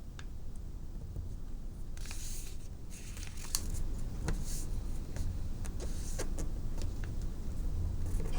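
A sheet of origami paper being folded and creased by hand: a soft rustle about two seconds in, then a run of sharp crinkles and crackles, over a steady low hum.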